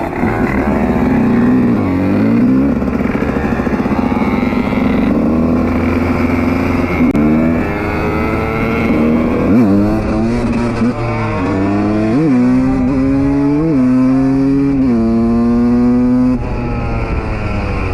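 Two-stroke supermoto motorcycle engine running, with several quick blips of the throttle that rise sharply in pitch and fall back, mostly in the second half. The revs drop near the end.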